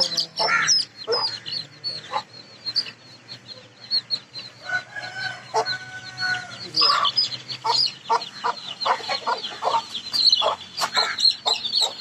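Aseel chicks peeping constantly in short, high, falling cheeps, mixed with a hen's low clucks. A rooster crows once in one long call, about five seconds in.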